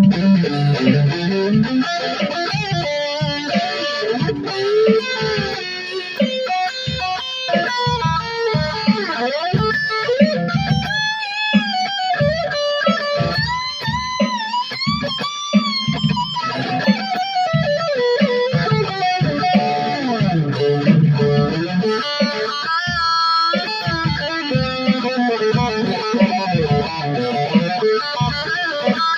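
Electric guitar with a Floyd Rose tremolo played solo: a continuous run of picked and tapped notes, several of them bending smoothly up and down in pitch in the middle of the passage.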